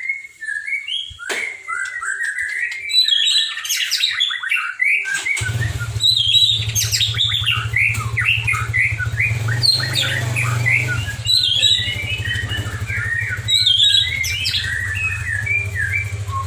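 White-rumped shama singing a fast, varied song of quick whistled notes, slurs and chattering phrases, the mimicked song fills (isian) that this bird is kept for. About a third of the way in, a steady low hum sets in beneath the song and continues.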